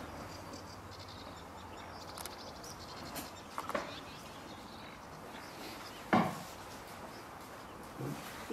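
Distant birds outdoors: faint high chirping in the first few seconds and a few short separate calls, the loudest about six seconds in, over a steady background hiss.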